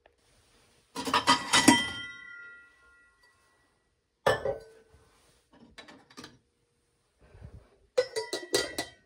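Kitchenware clinking as a tumbler and cutlery are handled at a dish rack and a utensil holder. A burst of clinks about a second in leaves a brief ringing tone. A single clink follows a few seconds later, and a quick cluster of metal-and-glass clinks comes near the end.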